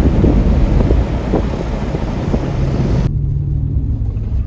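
Loud wind buffeting the microphone in a moving vehicle. About three seconds in it cuts off suddenly, leaving the steady low hum of the vehicle's cab.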